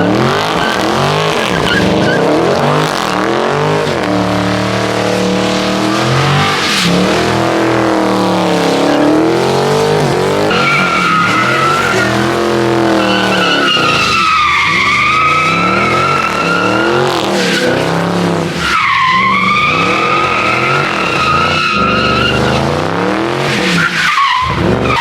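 Car engine revved hard, its pitch swinging up and down again and again as the car is slid around. From about ten seconds in, the tyres squeal in long wavering tones while the car skids.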